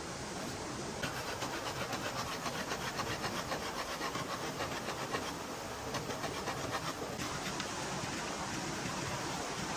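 Quick rhythmic scraping strokes on wood, about four a second, worked by hand. They start about a second in, break off briefly about halfway, and stop about seven seconds in, over a steady outdoor hiss.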